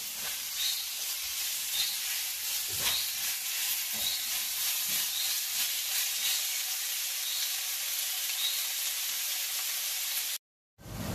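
Crushed shallots, green chillies, ginger, garlic and curry leaves sizzling in hot oil in a stainless steel pan, while a spatula stirs them and scrapes and knocks against the pan a few times. Near the end the sound cuts out for a moment and a lower, steady noise follows.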